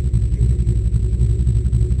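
A car's engine running as it drives, recorded from inside the car as a steady low rumble; the car is the 1978 Dodge Challenger race car.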